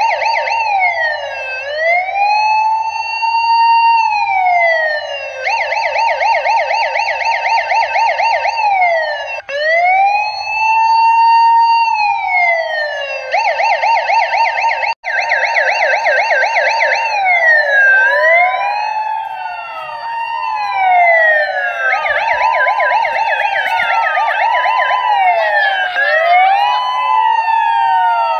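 Electronic siren switching back and forth between a slow rising-and-falling wail and a fast yelp, cutting out sharply twice. In the last third several siren tones overlap.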